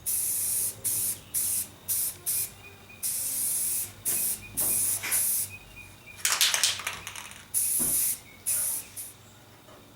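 Aerosol spray paint can hissing in about a dozen short bursts, each under a second or so, with brief pauses between them.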